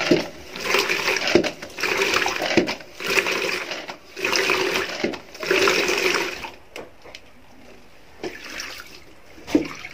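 Spin mop head turning in soapy water in the wash side of a spin mop bucket: water swishing and splashing in about six surges roughly a second long, then dying down to quieter splashes after about six and a half seconds.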